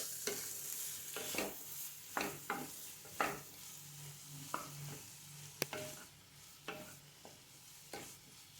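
Stirring carrots and soaked moong dal as they fry in a pan: irregular scrapes and taps of the utensil against the pan over a faint sizzle.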